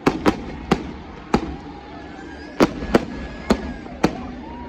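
Fireworks going off: about eight sharp bangs at uneven intervals, several in quick pairs, over a steady outdoor background.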